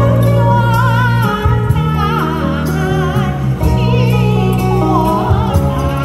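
A woman singing a slow song with vibrato into a microphone over an instrumental accompaniment with a steady bass, amplified through stage speakers.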